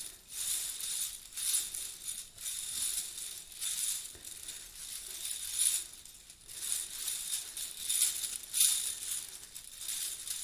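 Seamless metal chainmail being shaken and run through the hands, its many small rings jingling and swishing in repeated waves about once a second.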